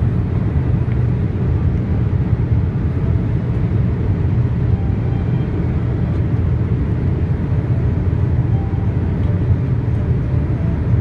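Steady cabin noise of a Boeing 787-8 airliner in flight on approach, heard from a window seat: an even, deep rumble of engines and airflow with no changes.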